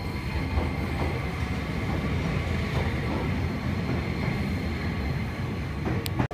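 Enoshima Electric Railway (Enoden) train pulling out of the station, its motors and wheels rumbling steadily as the cars pass. The sound cuts off suddenly at the end.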